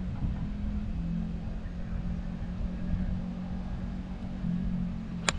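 Motor vehicle engine running steadily with a low hum, and one sharp click near the end.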